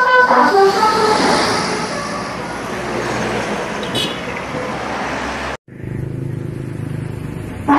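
Tail of a multi-tone telolet bus horn melody in the first half second, then the rush of a bus driving past, engine and tyres, swelling and easing off for several seconds. It cuts off abruptly about five and a half seconds in and is followed by a low engine rumble.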